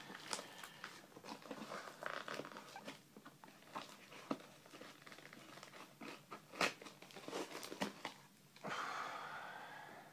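Scissors snipping and cardboard and packing tape crinkling as a taped parcel is cut open. About nine seconds in, a strip of packing tape is pulled away in one long rip that rises in pitch.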